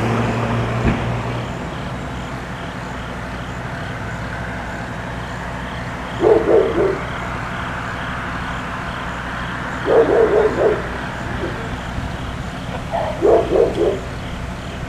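A dog barking in three short bouts of several quick barks each, about six, ten and thirteen seconds in, over the steady hum of a vehicle engine running.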